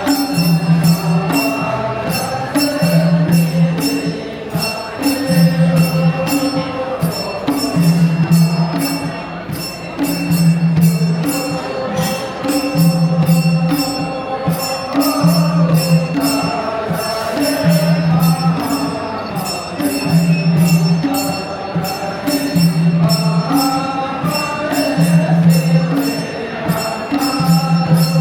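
Traditional Gurung folk dance music: singing over a slow, steady low drum beat and quick jingling percussion.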